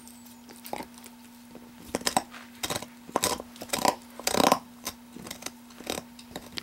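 Blue Heeler gnawing on a large bone: teeth scraping and crunching against it in irregular bursts. The bursts are sparse at first, become more frequent about two seconds in, and are loudest around the middle.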